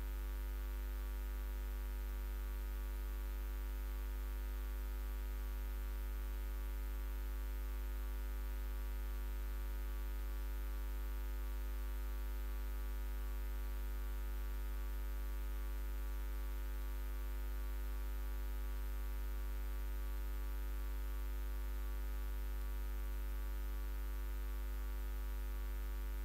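Steady electrical mains hum with a faint hiss over it.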